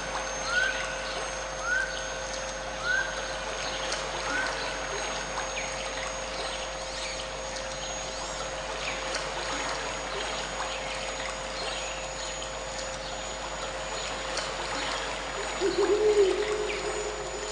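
Recorded nature sounds of running, trickling water with steady pure tones held underneath. A bird repeats a short rising call about five times over the first few seconds, and near the end a brief low warbling call is the loudest sound.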